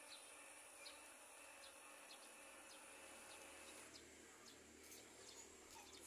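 Near silence: faint outdoor ambience with a few soft, short chirps and a steady high hiss that stops about four seconds in.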